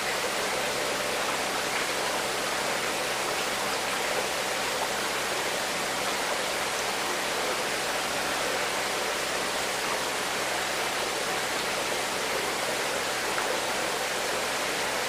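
Steady, even rushing noise that does not change or break, like running water.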